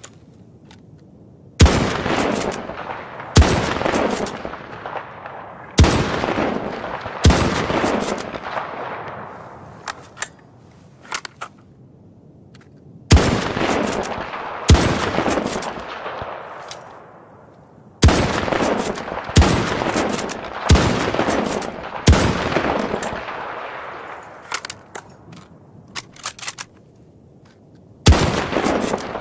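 M24 bolt-action sniper rifle (7.62×51mm NATO) firing about eleven single shots, mostly a second and a half to two and a half seconds apart, with longer pauses between groups. Each crack is followed by a long fading echo, and faint small clicks come in some of the gaps.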